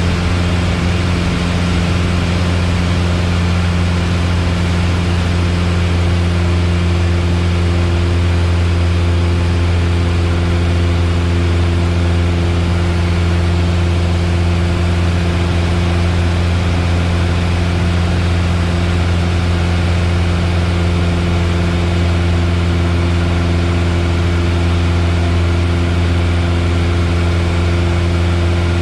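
Piper Warrior's four-cylinder piston engine and propeller droning steadily in flight, heard from inside the cabin: a loud, even low hum with steady engine tones above it.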